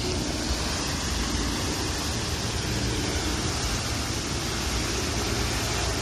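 Water from a tall single-jet fountain falling back and splashing into its pond: a steady rushing hiss with a low rumble underneath.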